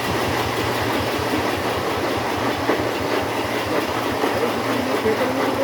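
Small engine idling steadily, with a rapid even putter.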